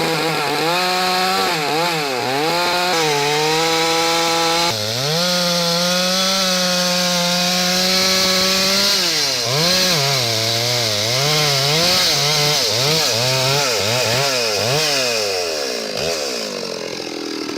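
Two-stroke chainsaw on a milling frame ripping a log into boards. The engine runs at high speed, its pitch dipping and recovering again and again as it loads up in the cut, and it slows down near the end.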